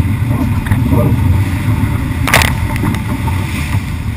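Wind buffeting the bow-mounted camera's microphone and water rushing past a 24-foot Strider sailing catamaran's hull as it sails fast through chop. There is a sudden hiss of spray about two seconds in.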